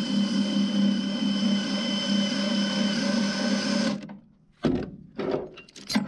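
DeWalt cordless drill running steadily at speed, driving a speed binder's worm gear to run the binder out and slacken the chain. It stops about four seconds in, followed by a few sharp metal clanks from the chain hook and binder hardware being handled.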